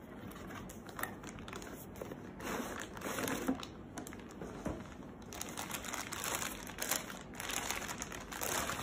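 Clear plastic packaging bag crinkling and rustling in irregular bursts as a headset inside it is handled and unwrapped, with cardboard box packaging handled near the start.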